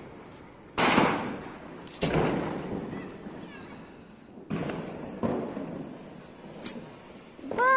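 Diwali firecrackers bursting: four sharp bangs a second or more apart, each trailing off in an echo, with a weaker crack later. Just at the end a loud wailing tone begins.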